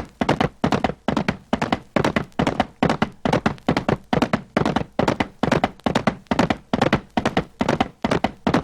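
Horse hooves galloping in a steady rhythm, about two to three beats a second, each beat a quick cluster of hoof strikes.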